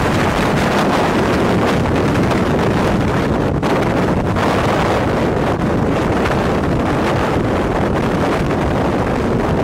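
Strong wind near a dust-filled tornado blowing across the microphone: a loud, steady rush of wind noise.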